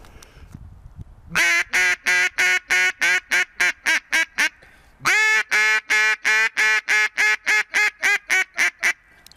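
Hand-blown duck call imitating a hen mallard's quacks, sounded by a hunter to draw ducks in to the decoys. It plays two series, each opening with a long drawn-out quack and running into shorter, quicker quacks.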